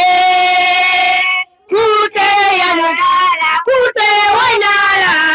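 A single high voice singing: one long held note, a short break about a second and a half in, then a wavering, ornamented melody.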